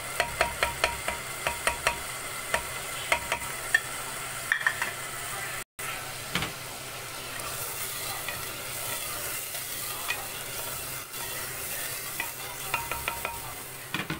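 Chicken and freshly added yogurt sizzling in hot oil in a clay pot while a wooden spoon stirs them, with quick clicks and knocks of the spoon against the pot through the first few seconds. The sound cuts out briefly a little before halfway, then the sizzling goes on with only an occasional knock.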